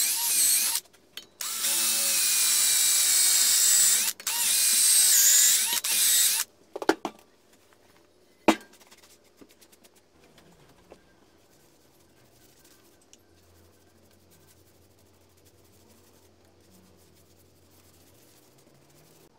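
Cordless drill boring into the end grain of a wooden log, running in long bursts with short pauses for about the first six seconds, its pitch wavering under load. Then a few knocks and a sharp click, followed by faint rubbing.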